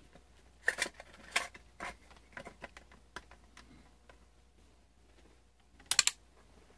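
Scattered small plastic clicks and knocks from hands working the front-panel connectors, switches and knobs of an Aoyue 968A+ soldering station, with a louder quick run of two or three clicks about six seconds in.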